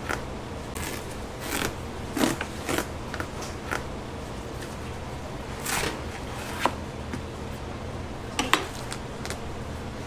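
Irregular short knocks, clicks and scrapes of a knife and utensils as fruit is cut and handled at a fruit stall, over a steady low hum.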